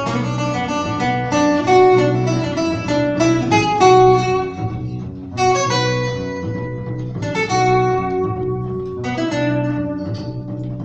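Acoustic guitar and upright bass playing an instrumental jazz passage: a run of plucked guitar notes over a steady low bass line, with no singing.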